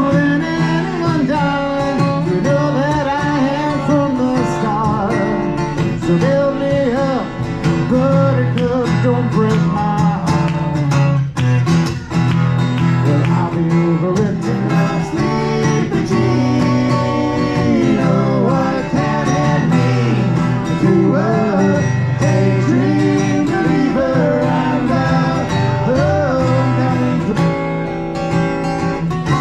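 Live music: guitar with a steady bass line under a sung melody, in a country style.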